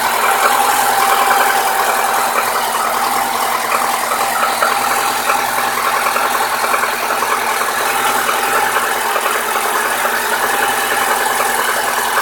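Lada Niva 21214's 1.7-litre four-cylinder engine running steadily, with a rapid, even ticking knock over it. The owner places the knock at cylinder 4 on the exhaust-manifold side and hears it only while the engine is cold; it goes away once the engine reaches 70–80 °C.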